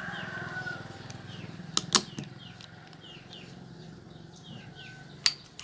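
Ruger SR1911 .45 ACP pistol's slide worked by hand to clear the empty gun. It gives two sharp metal clacks close together about two seconds in and another click near the end. Small birds chirp over and over in the background.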